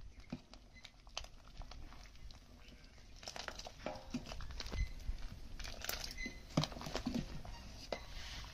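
Scattered clicks, light knocks and rustling, as of things being handled, growing busier about three seconds in.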